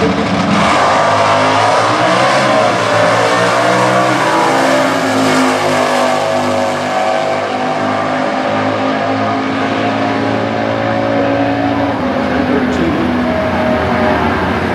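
Stock Eliminator drag-race car engine running loud and continuous. Its pitch bends in the first few seconds, then mostly holds steady.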